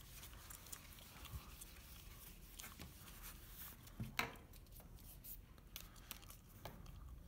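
Faint wiping of a handheld eraser across a small dry-wipe whiteboard, with light handling sounds and one sharp knock about four seconds in.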